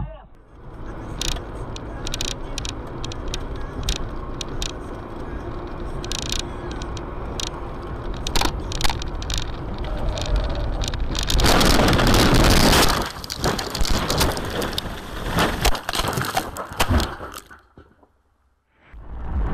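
Car dashcam audio: steady road and engine noise with scattered clicks and rattles, then a loud crunching crash about eleven seconds in, lasting over a second, typical of a collision. Knocks and crackles follow and die away to near silence near the end.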